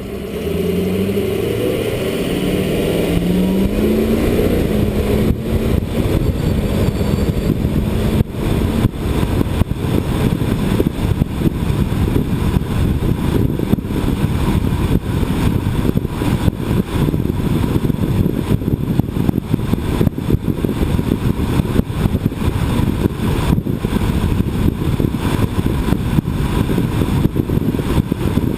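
Road traffic noise. In the first few seconds a vehicle engine rises in pitch as it accelerates, then a steady low rumble runs on, broken by irregular buffeting.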